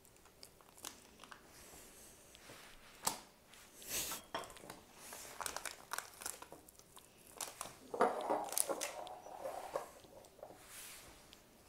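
Rustling and crinkling handling noise with scattered clicks and light knocks, and a longer, louder rustle about eight seconds in.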